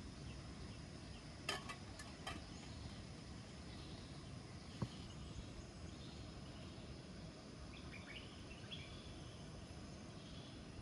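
Steady outdoor background noise with faint insect and bird chirps. A few short clicks or knocks come about a second and a half in, and a single sharp tap near the middle.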